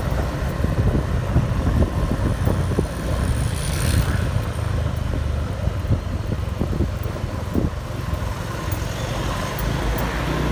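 Steady low rumble of wind and vehicle noise from riding along a city street, with a brief hiss about four seconds in.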